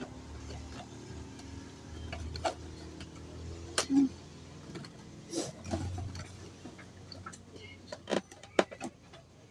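A cardboard product box being opened and handled: scattered clicks, taps and rustles of packaging over a low steady rumble.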